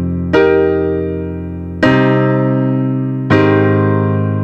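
Background music: piano chords struck three times, about one and a half seconds apart, each left to ring and fade.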